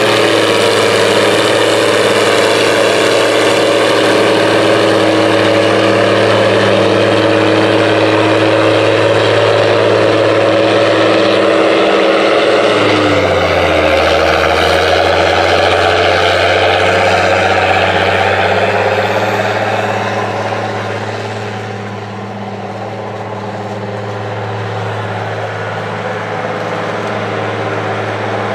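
International Harvester 3788 2+2 tractor's diesel engine running steadily under load, pulling a 13-shank chisel plow. Its pitch drops about halfway through as it goes past, and it grows fainter a few seconds later.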